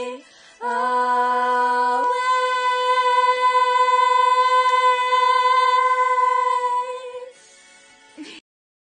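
Two girls singing unaccompanied, ending the song on one long held note that steps up in pitch about two seconds in and stops about seven seconds in. A soft click follows near the end.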